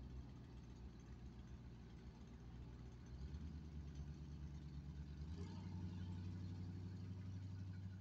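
A vehicle engine idling with a low, steady hum that steps up in pitch about three seconds in and again past the five-second mark.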